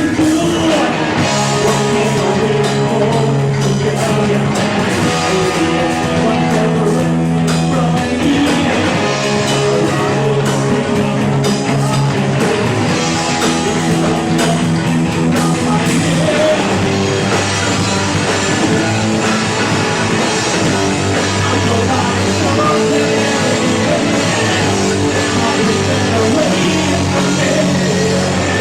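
A rock band playing live, loud distorted electric guitars over bass and drums in a long instrumental passage.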